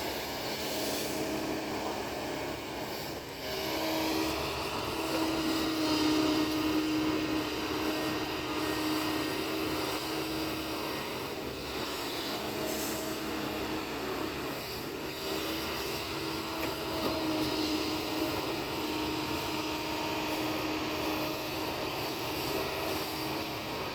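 Kobelco hydraulic excavator's diesel engine running steadily under working load, a continuous drone that gets louder about four seconds in.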